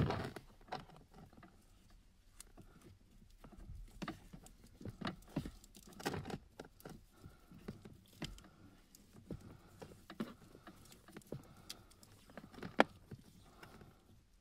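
Black vinyl electrical tape being pulled off the roll and wrapped around a power wire, with scattered handling rustles and clicks. There is a knock at the start and one sharp click near the end.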